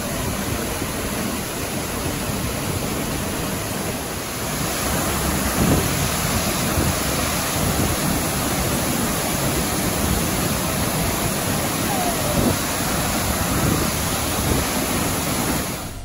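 A large waterfall plunging into its pool: a steady, dense rush of falling water, a little louder from about four seconds in.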